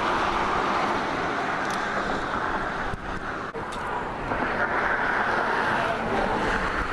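Steady road traffic noise from cars passing on the highway bridge alongside, easing briefly a little past three seconds in.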